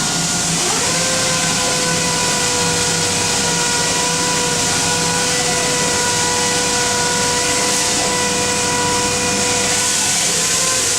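Steady high hiss of compressed air from a paint spray gun, with a steady whine that rises in pitch about a second in and holds until near the end.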